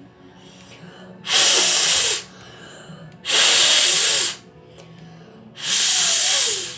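A person blowing hard into a washed fidget spinner bearing to clear out leftover water: three strong puffs of air, each about a second long, with short pauses between.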